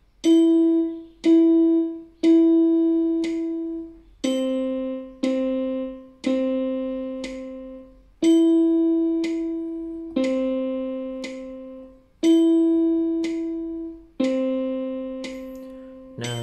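Electronic keyboard playing a simple two-note melody on E and middle C at about one beat a second: E, E, held E; C, C, held C; then held E, C, E, C. Each note starts sharply and fades. A metronome clicks faintly on every beat underneath.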